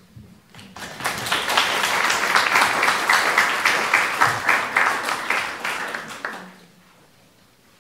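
Audience applauding, starting about a second in and dying away over the last couple of seconds.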